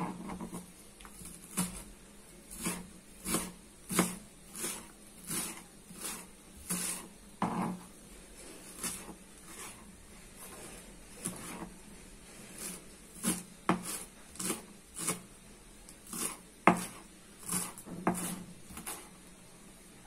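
Kitchen knife chopping coriander leaves on a plastic cutting board: a steady run of knocks, about one and a half a second, as the blade strikes the board through the leaves.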